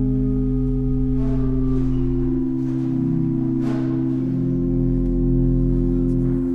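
Church organ holding sustained chords over a deep pedal note, the harmony shifting about a second and again about two and a half seconds in: the closing chords of the accompaniment to a sung liturgical response.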